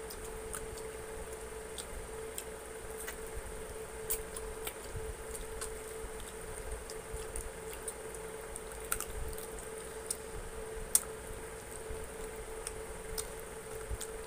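Close-up eating sounds: wet chewing, lip smacks and sharp mouth clicks as fried chicken wings are bitten and chewed, coming irregularly, with the sharpest click about eleven seconds in. A faint steady hum runs underneath.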